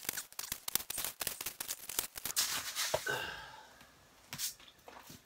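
Slush and ice crunching and scraping as it is scooped and handled with an ice skimmer: a rapid run of crisp clicks and crackles for about three seconds, a short swish, then one more click near the end.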